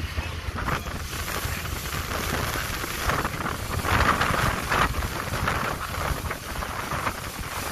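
Small motorboat under way: a low, steady engine sound under wind on the microphone, with water rushing and splashing against the hull in surges, loudest about four seconds in.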